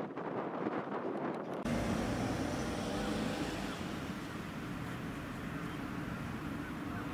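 Steady outdoor background rumble of traffic and wind. The sound changes abruptly about a second and a half in, turning fuller and lower.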